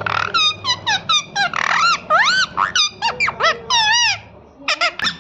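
A parrot calling: a rapid string of short squeaky chirps and whistles, several of them sweeping up and back down in pitch, with a short pause about four seconds in before the calls start again.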